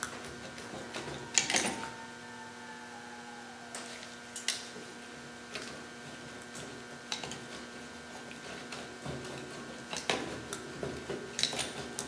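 Locking pliers clamped on a Dana 60 front axle's lower kingpin bushing, twisted and worked back and forth: scattered metallic clicks and knocks, the sharpest about a second and a half in and a cluster near the end, with a drawn-out squeak falling in pitch a couple of seconds in.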